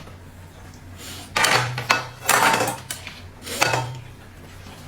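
Kitchen utensils scraping and clattering against dishes or a pot in three short strokes, each about half a second long, spread over the second half.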